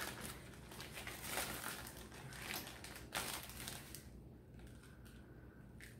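Thin plastic bag of jerk seasoning crinkling and rustling as it is handled and seasoning is pinched out of it. The rustling fades out about four seconds in.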